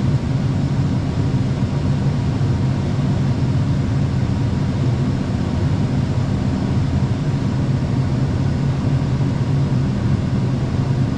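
Vehicle engine running steadily under way, an even low drone that holds the same level throughout.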